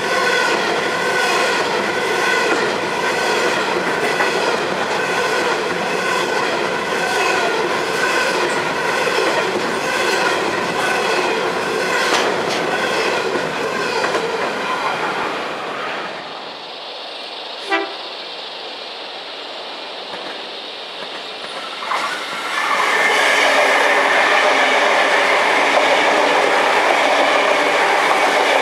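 Empty coal hopper wagons rolling past, their wheels clattering over rail joints in a steady rhythm over steady high-pitched tones. About 16 s in the sound drops to a quieter stretch with a short high blip. From about 22 s a NSW TrainLink regional diesel railcar set comes through loudly.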